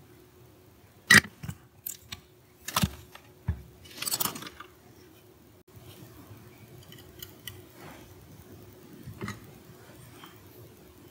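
Workbench handling noise: a quick run of sharp knocks and clatters in the first few seconds, the first the loudest, as the soldering iron is put aside and a small aluminium box is picked up and set on the mat, then softer rustling and one light knock.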